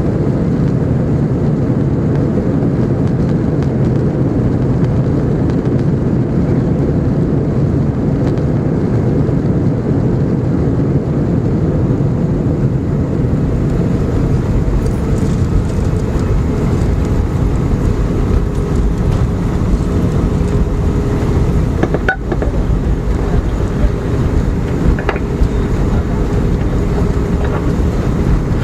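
Loud, steady rumble of an Airbus A319's engines and running gear heard inside the cabin on the ground after landing. A faint steady whine joins about halfway through.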